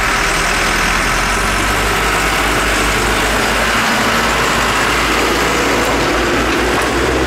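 Heavy earthmoving machinery engine running steadily, a loud even noise with a low hum underneath.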